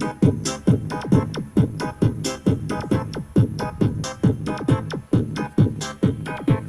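Electronic dance music with a steady kick drum, about two beats a second, and synth chords, played through a Royqueen M350 Bluetooth speaker.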